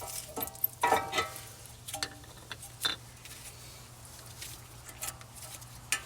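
Scattered metallic clicks and clinks of brake pads and their pad clips being handled at a car's front brake, with a few short ringing knocks about a second in. A low steady hum runs underneath.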